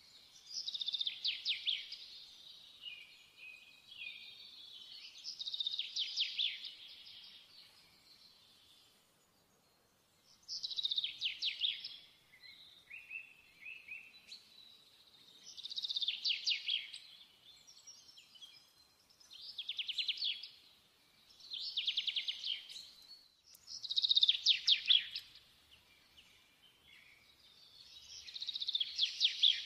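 A songbird singing: short, fast trilled phrases about a second long, repeated every few seconds, about nine in all.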